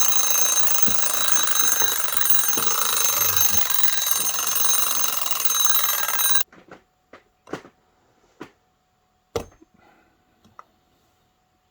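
An alarm ringing steadily for about six and a half seconds, then cut off suddenly; a few light clicks and knocks follow.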